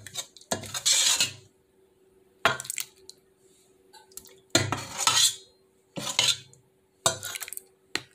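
Metal ladle clinking and scraping against a metal soup pot in about six short bursts, each a sharp knock followed by a brief scrape, as thick pea soup is scooped out.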